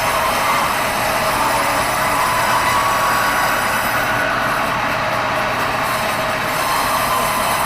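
Sawmill band saw sawing red meranti timber: a steady, loud mechanical whine with a constant rush of cutting noise.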